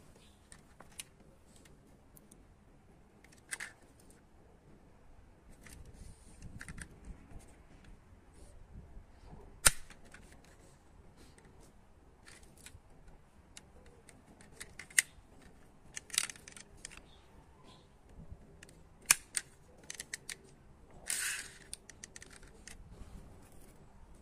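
Irregular small clicks and clacks of die-cast metal and plastic toy vehicles being handled and set down on a concrete floor, with a few sharper knocks and one short scraping clatter near the end.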